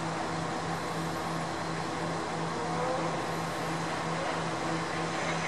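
Diesel engine running steadily out of sight, a low hum with a regular pulsing throb, typical of a diesel railcar at a station.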